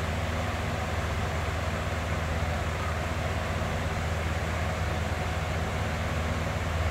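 Electric box fan running steadily: a continuous rush of air over a low, even motor hum.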